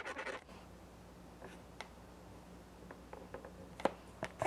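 Black Sharpie marker scribbling on a latex balloon as a pupil is coloured in, stopping about half a second in. After that, a few faint light clicks and taps, the last near the end the strongest.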